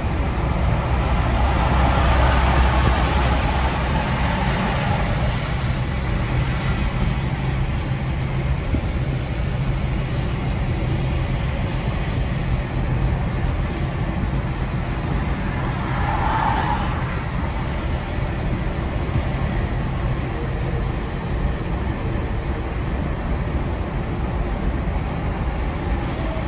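Steady road and tyre noise heard inside the cabin of a first-generation Nissan Leaf electric car cruising at about 60 km/h, with no engine note. The low rumble is a little louder in the first few seconds, and there is a brief swell about 16 seconds in.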